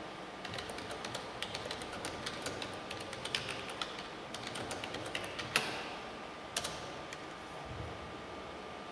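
Typing on a computer keyboard: a quick, irregular run of key clicks for about six seconds, with one louder keystroke about five and a half seconds in, then the clicks stop. A faint steady hiss with a thin high tone runs underneath.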